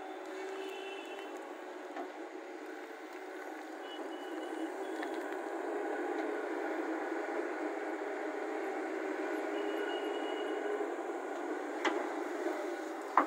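Hyundai 220LC crawler excavator's diesel engine and hydraulics running steadily under load, a little louder from about four seconds in as the loaded boom lifts and swings. A single sharp knock near the end.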